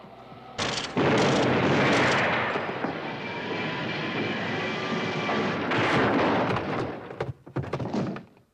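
Gunfire in a film shootout: a few sharp shots about half a second in run together into a loud, continuous echoing roar. A second loud volley comes about six seconds in, then it dies away in scattered cracks.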